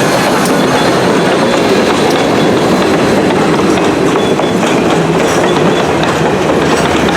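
Southern 630's steam excursion train rolling past, its wheels clicking over the rail joints in a steady clatter.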